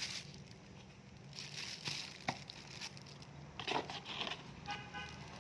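Packaging being handled: rustling and crinkling with scattered sharp clicks and taps, and a short squeak near the end.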